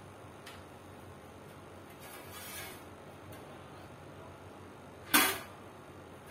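Parts of an Advance TDS-18 stand fan being handled and fitted together: a few light clicks and a soft swish, then one loud sharp clack about five seconds in.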